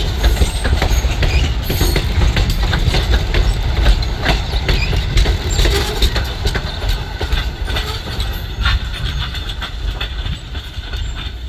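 A train hauled by Strasburg Rail Road steam locomotive No. 89 rolling by, a heavy low rumble with the wheels clicking over the rail joints, easing off a little near the end.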